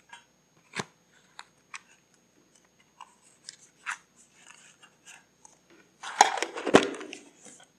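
Paper and craft materials being handled at close range: scattered light taps and clicks, then about six seconds in a louder stretch of crackling paper with a sharp knock in the middle of it.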